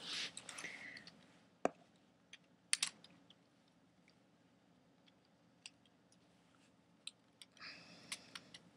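Plastic Lego Technic pieces clicking and rattling as a hand-built Lego gun is handled: a handful of sharp, separate clicks spread over several seconds, with soft rustling near the start and again near the end.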